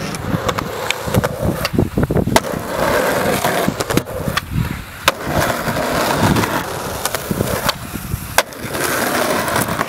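Skateboard wheels rolling on rough concrete, broken by sharp clacks of the board popping and landing.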